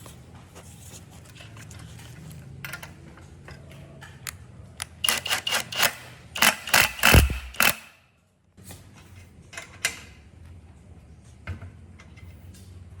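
A run of sharp clicks and clinks from small hard objects being handled, densest and loudest about five to seven and a half seconds in, then a brief dropout to silence.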